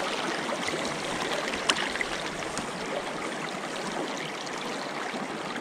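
Trout stream water running, a steady rush with a few small sharp ticks, the clearest about a second and a half in.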